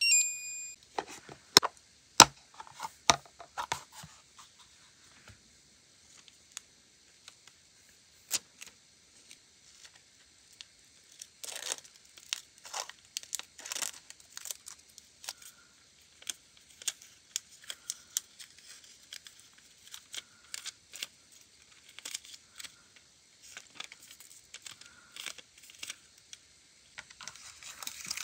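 A short electronic beep from a nail UV/LED lamp right at the start, followed by a few sharp clicks. From about eleven seconds in, thin nail transfer foil crinkles and rustles as sheets are pulled from their plastic case, handled and cut with scissors.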